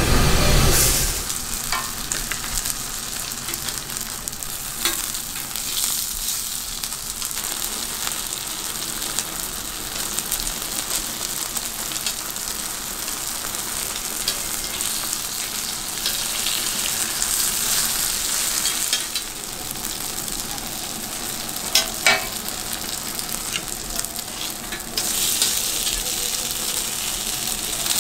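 Gunmandu (Korean pan-fried dumplings) sizzling in oil on a flat griddle, a steady hiss, with a few sharp clicks of metal tongs as they are turned. The sizzling grows louder near the end.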